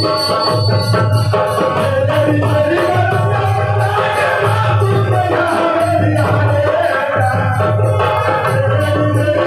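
A live jhumar song sung into a microphone over a loudspeaker, backed by hand drums and tambourine jingles. A low drum beat falls about once a second.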